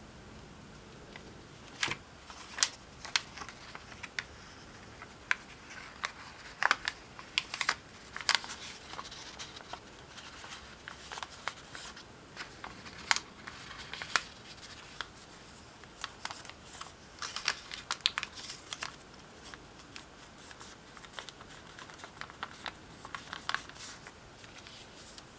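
Origami paper being folded and creased by hand: many short, crisp crinkles and crackles of the paper at irregular intervals, as it is turned over and its folds pressed flat.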